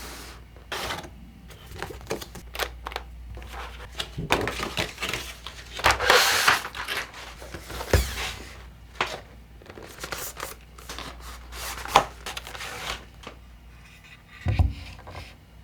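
Keyboard unboxing handling sounds: irregular clicks and taps of plastic parts being picked up and set down, with packaging rustling. The longest rustle comes about six seconds in, and a sharp knock comes near the end.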